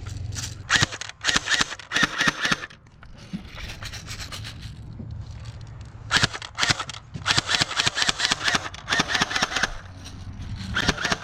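Airsoft gun firing in rapid bursts of sharp clicks: a burst of about two seconds near the start, a longer one of over three seconds in the second half, and a short one at the end.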